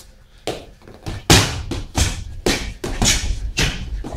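Boxing gloves smacking into focus mitts in a quick, uneven run of punches, about eight in all, starting about half a second in; the loudest comes about a second and a half in.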